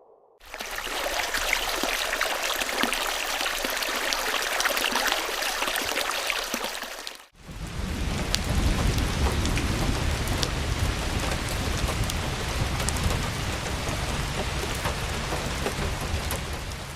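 Two rain sound effects, one after the other. First a hissing rain of fine drops; then, after a brief break about seven seconds in, a heavier rain with a deep rumble underneath.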